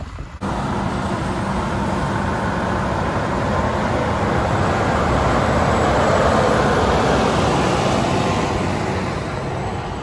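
Large four-wheel-drive John Deere tractor's diesel engine running steadily as it drives close past, pulling a grain cart. It grows loudest about six seconds in, then fades a little.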